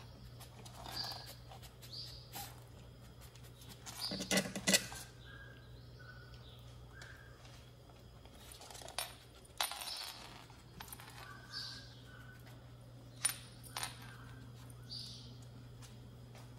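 Dry kibble clinking and rattling against a stainless-steel pet bowl as a kitten eats from it, with scattered small clicks and a louder clatter about four seconds in.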